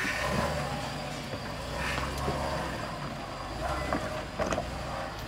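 Lifted Chevrolet Suburban's engine running under load as the truck crawls over rocks and loose dirt, a steady low rumble.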